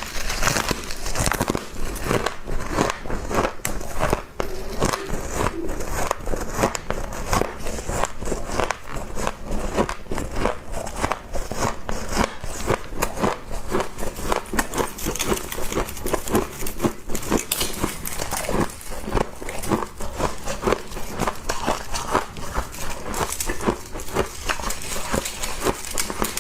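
Mouthfuls of humidifier frost being chewed, a dense continuous run of crunching and crackling bites.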